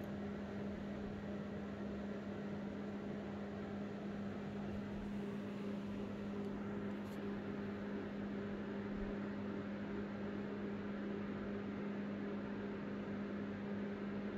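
Steady electrical hum with a faint hiss: room tone from an appliance running.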